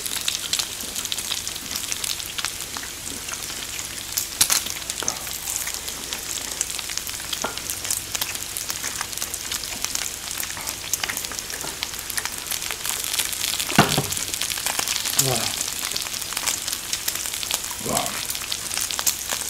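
Pork belly and garlic sizzling on a ridged grill plate, fat crackling and spitting steadily, with a few short louder sounds over it.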